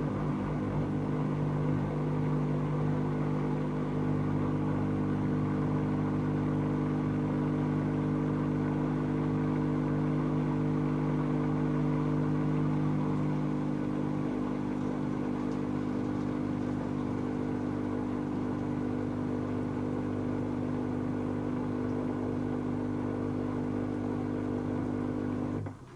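Dyson Contrarotator CR01 washing machine running mid-cycle, its drum motor giving a steady hum with a whine. The sound cuts out abruptly at the very end.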